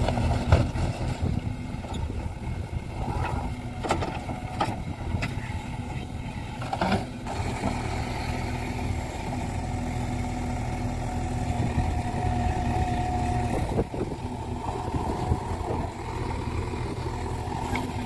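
JCB 3DX backhoe loader's diesel engine running steadily under load as the backhoe arm digs and swings, with a few sharp knocks in the first seven seconds and a brief higher whine about two-thirds of the way through.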